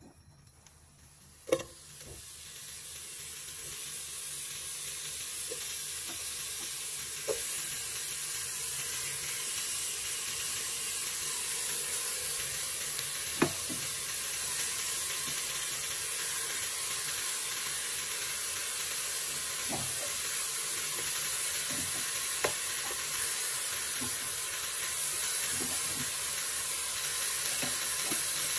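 Steady sizzling hiss from a hot pot on the stove as meat and dried fish heat in it, building up over the first few seconds, with a few light knocks as pieces go into the pot.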